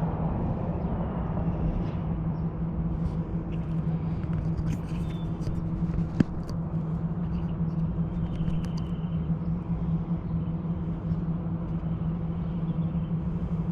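Steady low mechanical hum with a constant pitch, like an idling engine or large machinery, with faint bird chirps over it and a single sharp click about six seconds in.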